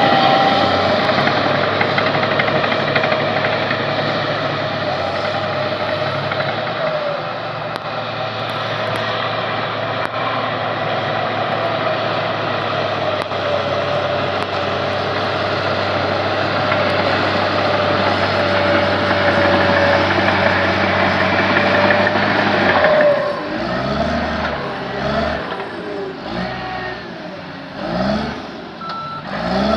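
Diesel engine of heavy earthmoving machinery running steadily, then revving up and down with dips in loudness over the last several seconds as the machine works.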